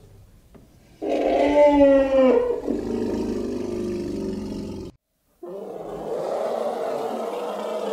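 African elephant calls. About a second in comes a brassy, trumpet-like call that bends down at its end and breaks into a rougher sound. After a short break, a longer, rough, noisy call follows.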